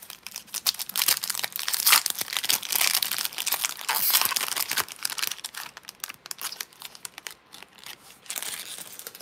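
Foil wrapper of a Pokémon trading card booster pack being torn open and crinkled by hand, a dense crackle loudest through the first five seconds. It then grows sparser as the cards are pulled out and handled, with a brief burst of crinkling near the end.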